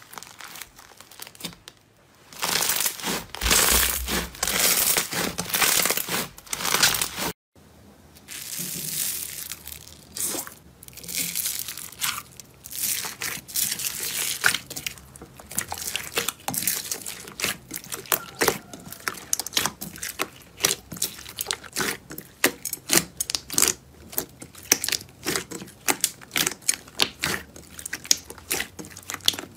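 Slime being squeezed and kneaded by hand: dense crackling at first, then, after a short break about seven seconds in, a slime packed with foam beads is pressed, giving a long run of separate sharp pops and crackles of beads and trapped air.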